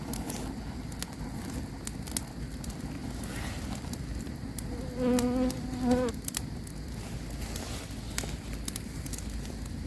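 Campfire crackling with scattered sharp pops over a steady low rumble. About halfway through, a flying insect buzzes for about a second.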